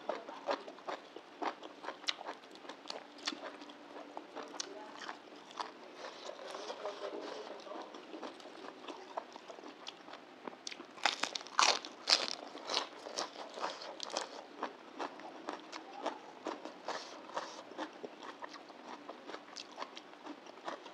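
Close-miked chewing and crunching of a mouthful of bamboo-shoot salad and fresh lettuce, with many wet crackling mouth clicks. The crunches grow louder for a moment about eleven seconds in.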